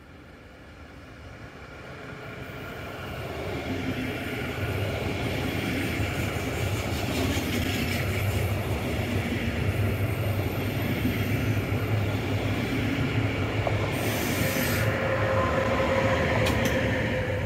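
Double-deck regional express train passing close by, its wheels rumbling on the rails. The sound grows louder over the first few seconds and then holds steady, with a brief high hiss about fourteen seconds in.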